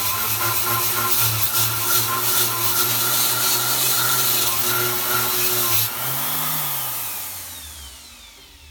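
Parkside PGS 500 A1 electric die grinder running a wire cup brush against steel, scrubbing welding slag off a weld with a steady motor hum and harsh scratching. About six seconds in the brush comes off the metal, and the motor winds down with a falling whine that fades out.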